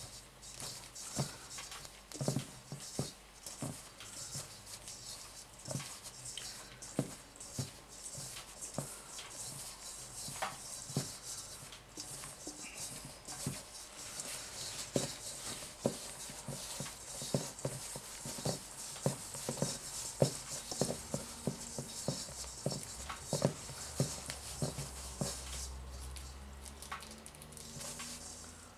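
Hands rubbing cold butter into flour in a metal mixing bowl: a steady soft rustle of fingertips working the crumbly mixture, with frequent light knocks and taps against the bowl, roughly one or two a second.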